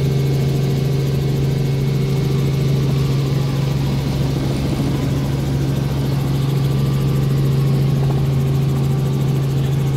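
Helicopter in flight, heard from inside the cabin: a loud, steady low drone of engine and rotor that stays even throughout.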